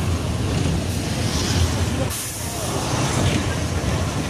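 Steady rumble of road and wind noise from a moving vehicle, easing briefly about two seconds in.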